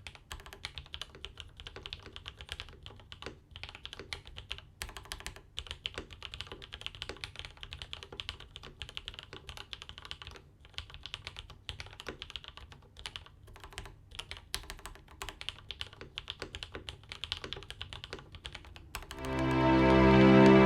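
Typing on a mechanical keyboard with vintage Cherry MX Black linear switches, lubed and filmed, under GMK keycaps: a fast, irregular run of keystrokes. Music swells in near the end.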